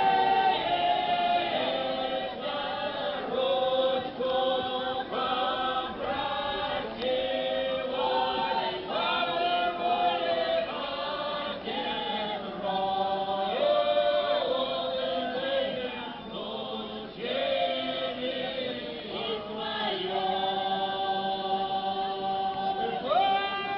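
Semeiskie folk choir singing a round song in several voice parts, holding long notes that slide from one pitch to the next.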